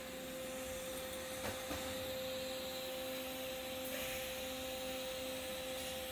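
Welding equipment running with a steady hiss and hum, and two light clicks about one and a half seconds in.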